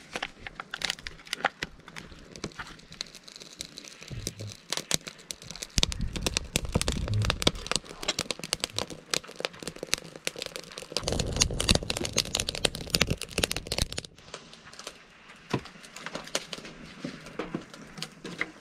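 Paper tea packet crinkling as it is handled, and a wood fire crackling in a rocket stove, making many sharp, irregular crackles and clicks. There are spells of low rumbling around the middle.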